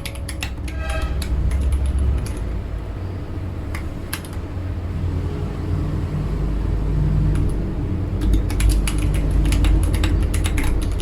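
Typing on a Kemove SnowFox 61 mechanical keyboard with Gateron Brown switches: quick runs of keystroke clicks in the first couple of seconds and again from about eight seconds in to the end, over a steady low rumble.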